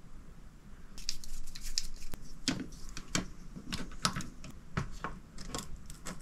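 Irregular small clicks and taps of a hex driver and small plastic and metal RC parts being handled while shocks are fitted to an RC car's plastic chassis, starting about a second in.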